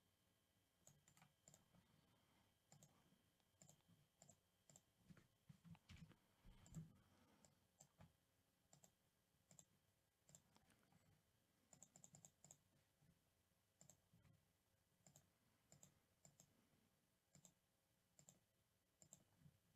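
Near silence broken by faint, irregular clicks of a computer mouse and keyboard.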